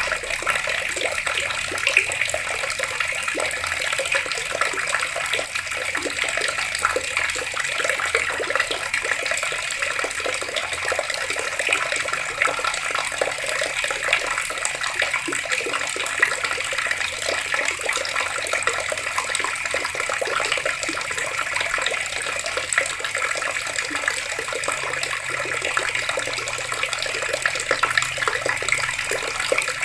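Water pouring from taps and splashing steadily, a constant hiss of falling water full of small splashes, with no pause or change.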